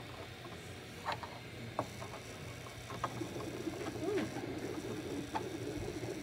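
3D printer running a print: a steady low hum, with its stepper motors whirring in a wavering, shifting pitch from about halfway in, and a few faint clicks.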